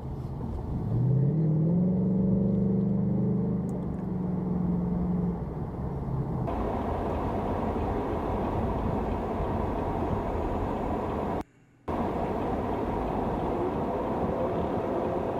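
Car engine rising in pitch as it accelerates, then holding steady for a few seconds. Then steady road and traffic noise, broken by a brief cut to silence about eleven and a half seconds in.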